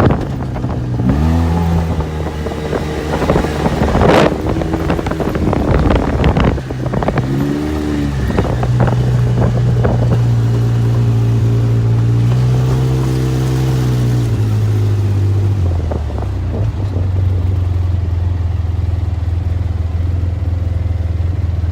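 Side-by-side UTV engine running under way, its pitch rising and falling several times with the throttle, with a few knocks, then settling to a steady lower drone.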